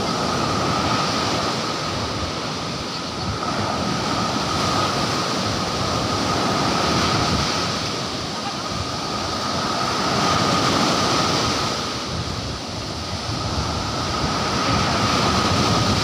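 Surf breaking on a sandy beach, the wash swelling and easing every few seconds, with a faint steady high tone running underneath.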